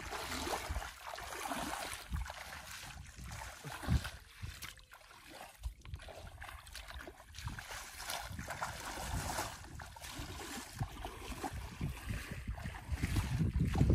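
Bare feet wading and splashing through shallow standing water, with wind rumbling on the microphone; the splashing grows louder near the end.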